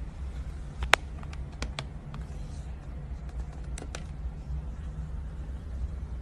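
Low steady rumble of room noise picked up by a phone microphone, with a few sharp clicks: one loud click about a second in and fainter ones a little later and near four seconds in.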